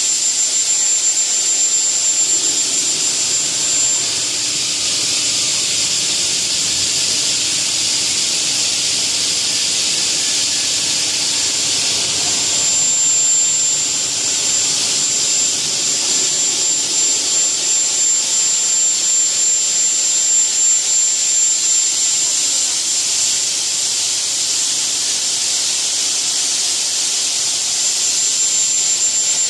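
CNC single-head aluminium cutting saw running: a steady, loud hiss with a thin high-pitched whine that fades out early and returns about halfway through.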